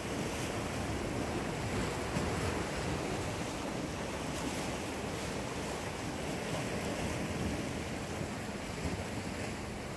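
Steady wash of sea surf against the rocky shore, mixed with wind buffeting the microphone.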